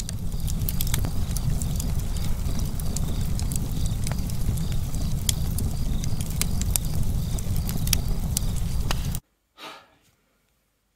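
Log fire burning: a steady low rush with frequent sharp crackles and pops of burning wood, cutting off abruptly about nine seconds in.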